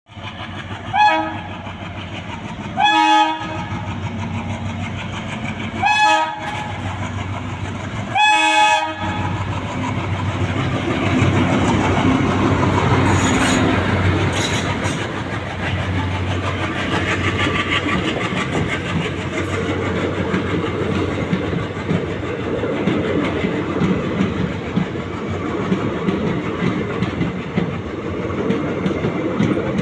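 WDP3A diesel locomotive sounds its horn four times in the first nine seconds, the later blasts longer than the first. Then the engine's chugging and the coaches' wheels clattering over the rail joints run on as the train passes.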